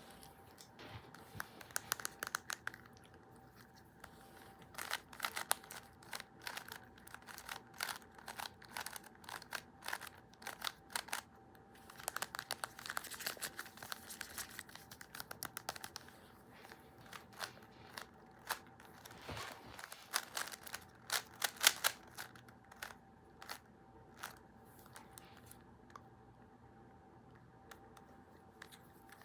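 Crinkling and crackling of something being handled and crumpled, in dense flurries of sharp crackles that stop about five seconds before the end, over a faint steady hum.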